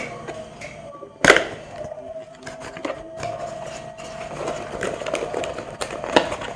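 Computer-part boxes and packaging being handled and opened: scattered clicks and rustles, with one sharp knock a little over a second in.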